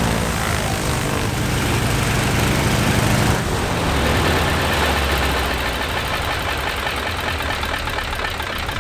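Stinson L-1's Lycoming R-680 nine-cylinder radial engine running steadily at low power, shortly after a hard-won start.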